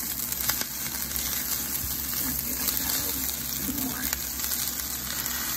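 Vegetable fried rice with baby spinach sizzling in a stainless steel skillet while it is stirred with a wooden spoon: a steady hiss with a few light scrapes of the spoon.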